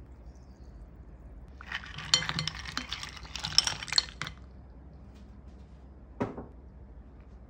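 Round ice balls tipped into a cut-glass bowl of milky fruit punch, clinking against each other and the glass in a rapid clatter of about two and a half seconds. A single knock follows about two seconds later.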